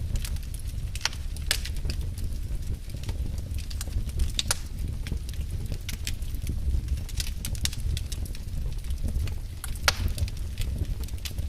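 Wood fire crackling in a fireplace: irregular sharp pops and snaps over a low steady rumble, with a few louder pops about a second and a half in, near the middle and near the end.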